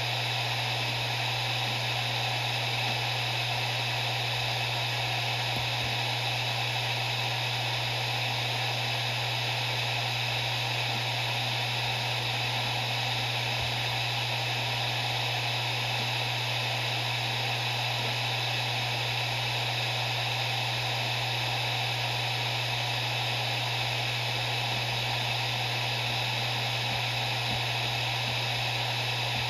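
Maxtor MaXLine Plus II 7Y250M0 7200 RPM hard drive spinning steadily at full speed: a constant low hum with an even airy hiss, unchanging throughout.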